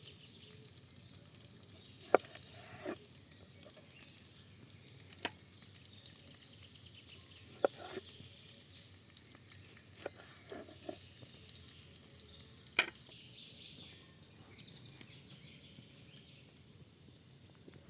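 A knife chopping on a wooden cutting board in single sharp knocks a second or several seconds apart. Birds chirp in the background, loudest near the end.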